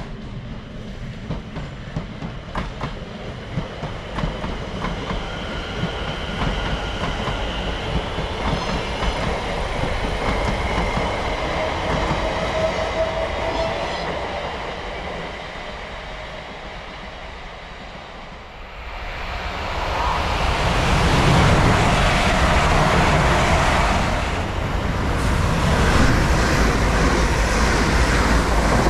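London Overground Class 710 electric multiple unit running through the station, its wheels clicking over rail joints, with an electric motor whine that rises in pitch near the middle. About two-thirds in, a London Northwestern Railway Class 350 Desiro electric unit comes past close by: a louder, steady rush and rumble of wheels on rail.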